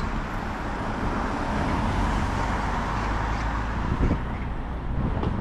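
Steady street traffic noise, with cars running on a nearby road.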